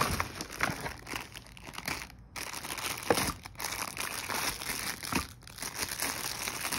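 Plastic wrapping and bubble-wrap sleeves around boxed hair-styler attachments crinkling irregularly as they are handled, with a few sharper crackles.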